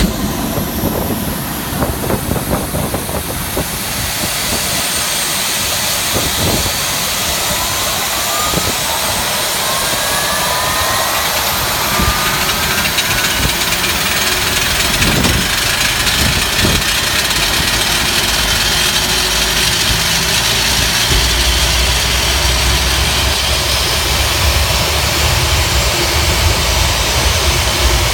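Airbus A319ceo turbofan engine starting up: whines rise in pitch as the engine spools up, the overall sound slowly growing louder, with a low rumble building in the last several seconds.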